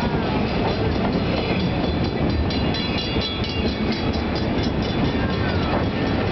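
A passenger train runs along the track with a steady rumble of its wheels and engine. A fast, even run of clicks rides on top for about two seconds in the middle.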